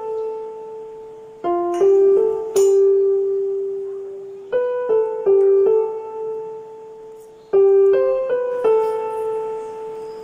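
Background piano music: short phrases of a few quick notes, each ending on a held note that fades away, starting about every three seconds.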